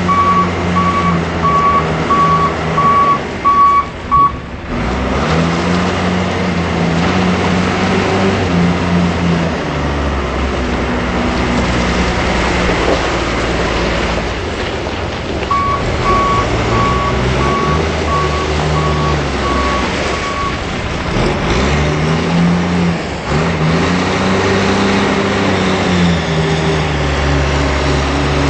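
John Deere 710C backhoe loader's turbo diesel engine running under load, its speed rising and falling as the machine works. Its reverse alarm beeps about twice a second for the first four seconds and again for about five seconds around the middle.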